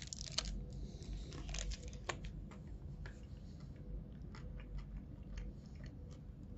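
A person biting and chewing a piece of Toblerone, its honey-almond nougat crunching as a run of soft, irregular clicks, thicker in the first two seconds.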